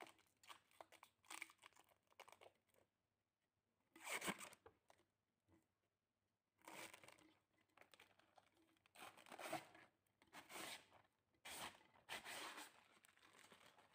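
Faint crinkling and tearing of plastic protective wrapping being pulled off a new coffee machine, in several short bursts with pauses between.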